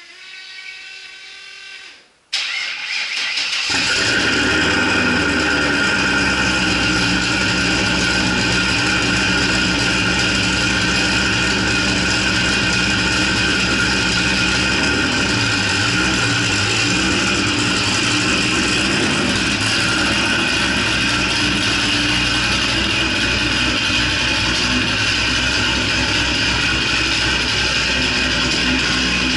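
Cammed C5 Corvette Z06's LS6 V8 cold start: after a brief hum, the starter cranks about two seconds in and the engine catches, settling by about four seconds into a steady cold-start idle.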